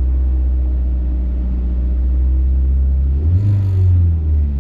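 Car engine idling steadily, then revved briefly about three seconds in and settling back near the end.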